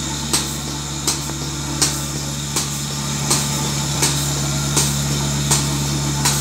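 KPT portable bucket milking machine running: the vacuum pump motor hums steadily while the pulsator clicks sharply about once every three-quarters of a second, pulsing the teat cups as the cow is milked.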